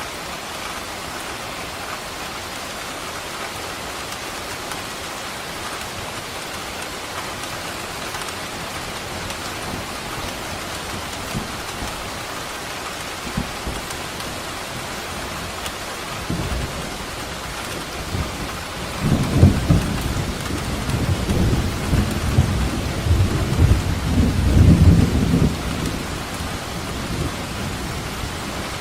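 Steady heavy rain hissing, with a long roll of thunder rumbling in about halfway through, swelling to its loudest over several seconds and then dying away.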